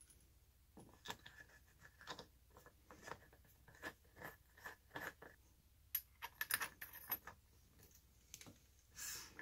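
Faint, irregular metallic clicks and scrapes of an RC truck's wheel nut being threaded onto the axle and tightened with a small hand wrench, busiest about six to seven seconds in.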